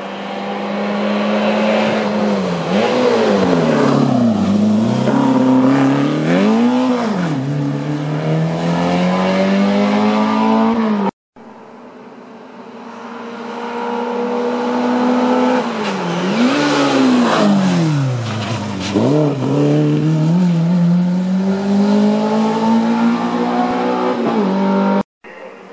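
Hill-climb race cars driven hard up the course, each engine note dipping and climbing several times as it changes gear and passes. There are two separate passes, with the sound cutting off abruptly between them.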